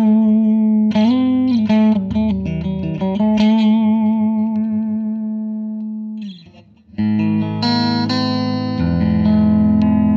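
Electric guitar played through a miked amplifier: single-note lead lines with string bends and vibrato, then a brief near-quiet gap about six and a half seconds in, after which chords ring out.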